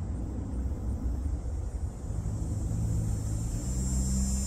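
Steady low outdoor rumble, joined about halfway through by a low steady hum and, near the end, a thin high-pitched band.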